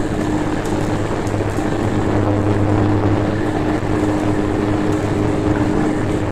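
Cabin noise of a turboprop airliner climbing out after takeoff: a loud, steady drone from the engines and propellers, with a deep hum and a steady higher tone over it.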